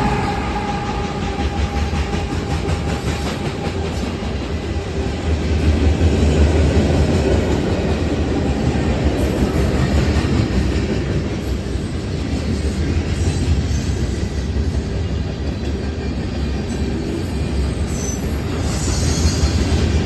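CSX freight train passing at close range: the steady heavy rumble of a diesel locomotive going by, then the rumble and clatter of freight car wheels on the rails, with a brief high wheel squeal near the end.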